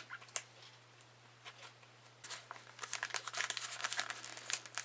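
A package being worked open by hand: faint handling for the first two seconds, then a dense run of crinkling and tearing.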